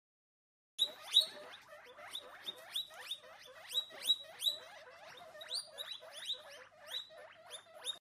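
A small animal squeaking: a quick run of short, high squeaks, each sliding downward, about three a second, starting about a second in.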